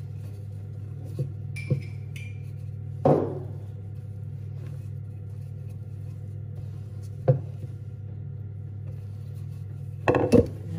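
Wooden rolling pin working scone dough on a wooden board: a few sharp knocks and clinks, the loudest about three seconds in ringing briefly, another near seven seconds and a quick cluster near the end, over a steady low hum.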